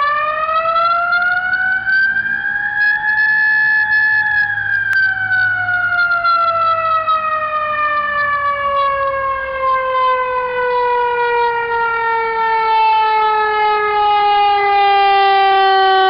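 Whelen X-ecutor 100 W electronic siren amplifier sounding through a Whelen 100 W speaker: one loud siren tone that rises in pitch for about three seconds, holds briefly, then falls slowly and steadily for the rest of the time.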